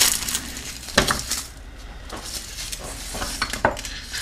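Garlic cloves handled at a wooden cutting board and a ceramic garlic keeper: three sharp knocks and clinks, at the start, about a second in and near the end, with a light papery rustle of garlic skins between them.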